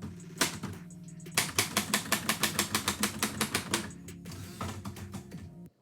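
Typewriter keys striking paper in a quick run of about eight strokes a second, from about a second and a half in to nearly four seconds, with scattered strokes before and after.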